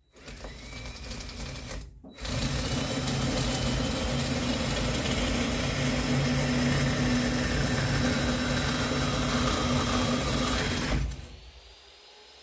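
Handheld power tool motor running: a short run of about two seconds, a brief pause, then a steady run of about nine seconds that stops near the end.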